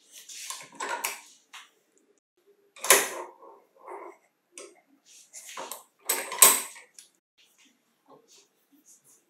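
Clinks, knocks and sharp clicks of small steel parts and tools against a bench vise as an angle grinder's armature, bearing and gear plate are set in the jaws and pressed. The loudest clicks come about three seconds in and just after six seconds.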